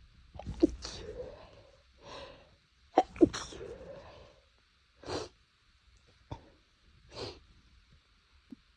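A person's stifled sneezes, held back to keep them quiet: two sharp double bursts about half a second in and again about three seconds in, each trailing off in a breathy exhale. Several shorter, fainter bursts follow.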